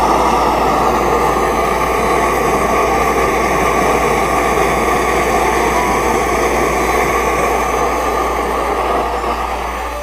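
Homemade jet alcohol stove, made from a paint can, roaring steadily as its flame jets burn under a pot of water, easing off a little near the end.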